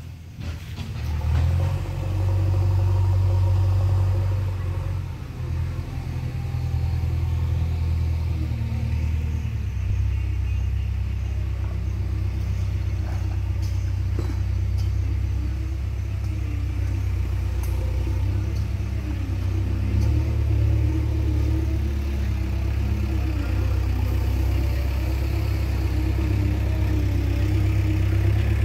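Wind buffeting an outdoor microphone: a steady low rumble that swells and eases.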